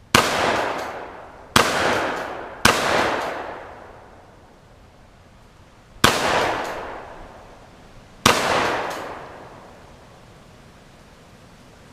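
Five gunshots fired at uneven intervals, the first three close together and two more a few seconds apart, each trailing off in a long echo.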